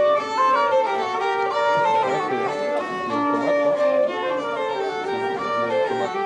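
A violin and a transverse flute playing a tune together.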